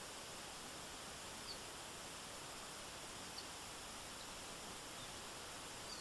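Steady rushing hiss of a forest stream, with a few faint short high chirps scattered through it.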